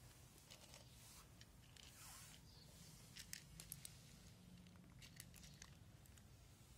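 Cats crunching dry kibble: faint, sharp crunches coming in small clusters, the loudest a little past the middle.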